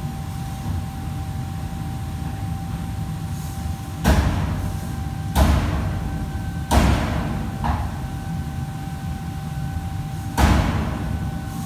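Heavy knocks in a kitchen, four loud ones and a lighter one, irregularly a second or more apart, each with an echoing tail. A steady hum with a faint whine from fans or kitchen machinery runs underneath.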